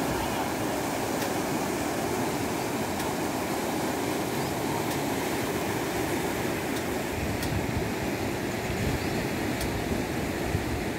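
Swollen river in flood, muddy water rushing past the banks in a steady, unbroken noise.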